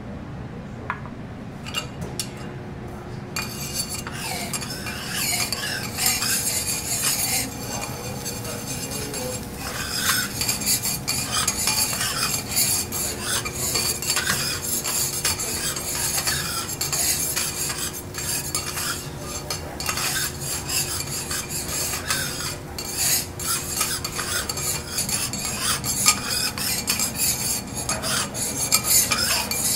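Metal spatulas scraping, tapping and stirring on a teppanyaki hot plate, with food sizzling. The clatter is sparse at first and turns into quick, dense scraping about three seconds in.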